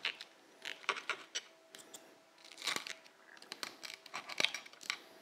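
Table knife cutting through the crisp, crackled skin of a roast pork-belly porchetta: a run of short, dry crunches and crackles as the blade saws through.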